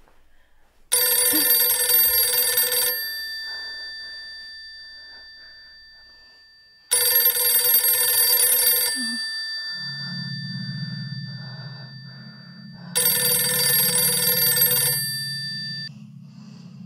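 Smartphone ringtone for an incoming call: a loud bell-like ring, three times about six seconds apart. Each ring lasts about two seconds, and some of its tones hang on and fade after it. About halfway through, a low steady hum comes in beneath the rings.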